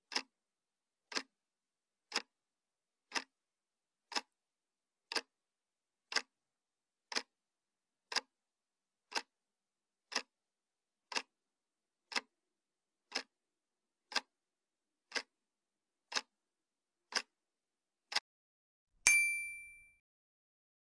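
Countdown-timer sound effect: a clock-like tick once a second, about nineteen times, then a single bright ding near the end that rings out over about a second, marking the answer reveal.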